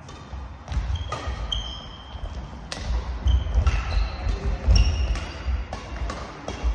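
Badminton doubles rally: rackets striking the shuttlecock in sharp cracks every second or so, with short high squeaks of sports shoes on the court floor and low thuds of footwork.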